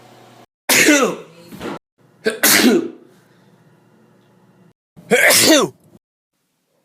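A man sneezing three times, each a loud voiced 'achoo' that falls in pitch. The sneezes are separated by abrupt cuts to silence.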